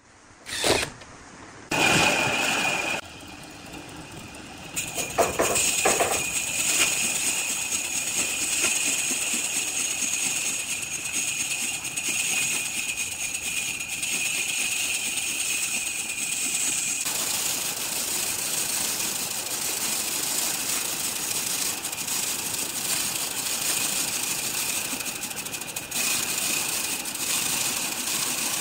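Woodworking power tool running steadily with a high whine and a noisy cutting hiss, after a few short loud bursts as it starts up.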